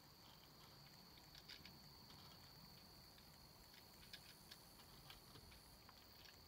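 Near silence, with faint scattered clicks and ticks from gear being handled on a plastic barrel top, over a faint steady high tone.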